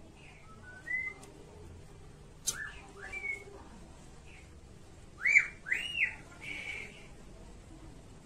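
A bird calling: a few short whistled notes that rise and fall, the loudest a pair of arched notes about five seconds in. A single sharp click sounds about two and a half seconds in.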